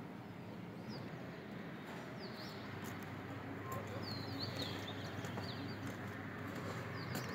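Small birds chirping in short, high, quick calls, most of them in a cluster about four seconds in, over a steady low background hum.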